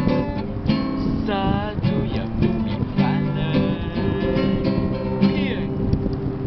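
Nylon-string acoustic guitar strummed and picked, with a few notes sliding in pitch.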